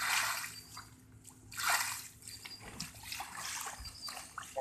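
Water in an inflatable pool sloshing and pouring over the rim onto concrete in three splashing surges, the loudest at the start and another near the middle.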